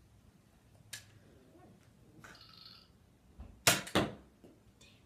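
Toy blaster being shot: a faint click about a second in, then two sharp cracks close together a little past halfway, the louder of the two first.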